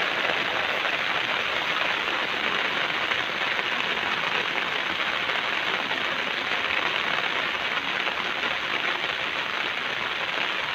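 Steady rain falling on leafy garden shrubs, an even hiss of drops.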